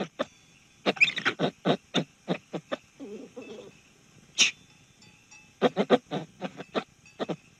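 Monkey calling in short, sharp yelps, several a second, in two runs, with one louder call about four and a half seconds in.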